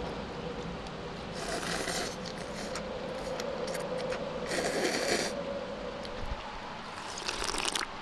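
Cold kimchi noodles slurped up from a cup twice, each a long hissing slurp lasting about half a second, with small clicks of chopsticks between. A faint steady hum runs underneath.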